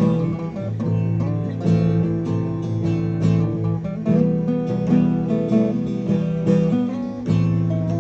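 Acoustic guitar being strummed, chords in a steady rhythm with the bass notes moving from chord to chord.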